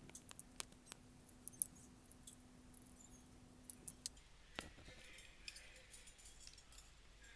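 Irregular small sharp clicks and taps of hard plastic parts as the bottom cover of a mini pouch sealing machine is pried and pulled off by hand.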